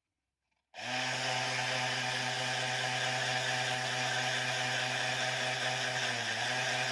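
An electric power tool switches on just under a second in and runs steadily at full speed with a constant motor hum; its pitch dips briefly about six seconds in.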